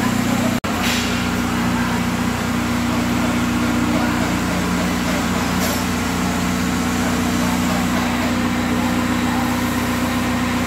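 Tractor engine running steadily, with an even low hum. The sound drops out for an instant just over half a second in.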